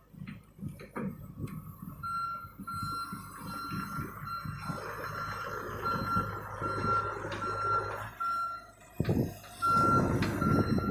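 Heavy machine's back-up alarm beeping about twice a second over a diesel engine running, with clanks and a few louder knocks near the end.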